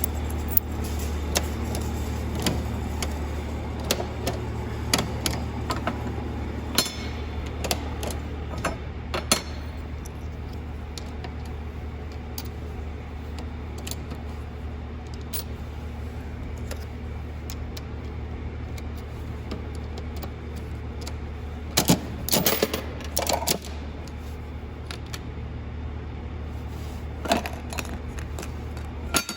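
Scattered clicks and light rattling of small hard objects being handled, with a busier cluster of rattles a little past twenty seconds, over a steady low hum.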